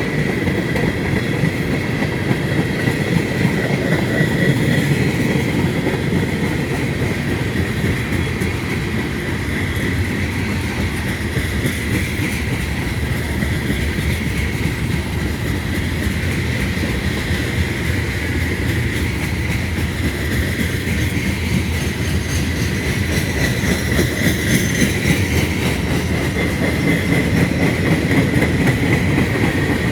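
Freight train rolling past steadily: the rumble and clatter of cars on the rails, with a thin high tone held over it.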